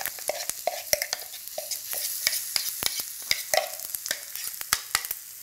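Spiced oil frying in a pan as coarse lentil paste is tipped in: a steady high sizzle with many sharp, irregular pops from mustard seeds spitting in the hot oil. A spoon scrapes the paste out of a glass blender jug into the pan.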